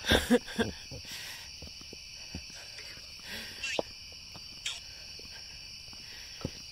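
Night insects chirring in a steady, high, continuous chorus. A short snatch of voice comes right at the start.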